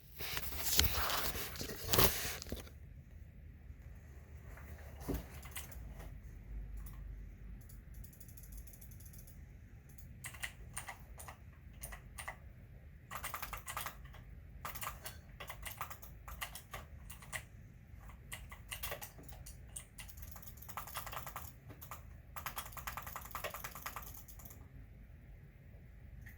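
Typing on a computer keyboard: bursts of rapid keystrokes separated by short pauses, loudest during the first couple of seconds.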